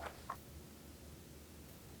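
Two light clicks about a quarter of a second apart, from metal bicycle parts or tools being handled, over a faint low hum.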